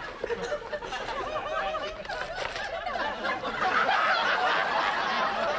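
Studio audience laughing, many voices at once, swelling louder about halfway through.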